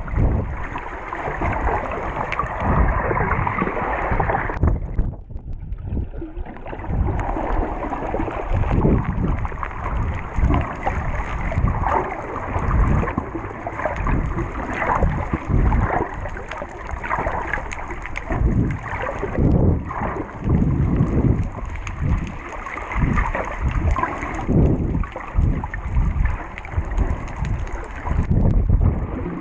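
Water rushing and bubbling against a GoPro's sealed underwater housing as it moves through the water, in uneven muffled rushes and thumps.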